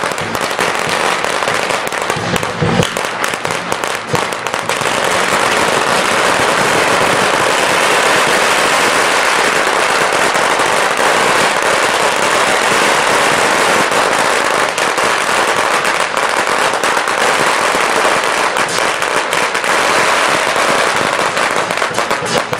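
A string of firecrackers going off in a rapid, unbroken crackle of bangs, growing louder and denser about five seconds in.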